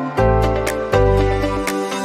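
Gentle instrumental background music: sustained chords over a bass line that changes note about every three-quarters of a second, with light ticks on a steady beat.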